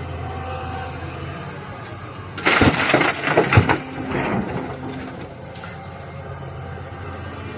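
Heavy excavator's diesel engine running steadily, with a loud burst of crashing and clattering stone about two and a half seconds in, lasting a second and a half and tailing off, as the bucket handles a load of quarry rock.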